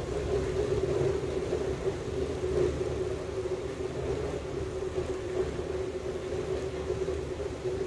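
Steady mechanical hum with a low rumble underneath, holding one constant pitch without change.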